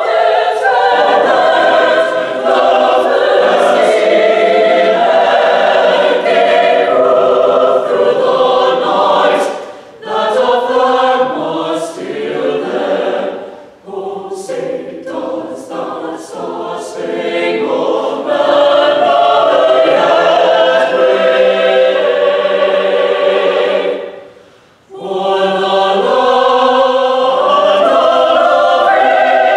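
A choir singing in held chords, with brief breaks between phrases about ten, fourteen and twenty-five seconds in.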